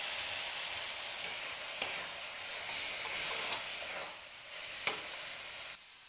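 Water poured into a hot metal kadai of small prawns in tomato masala, sizzling and hissing, while a flat spatula stirs with a few sharp clicks against the pan. The sizzle drops away abruptly near the end.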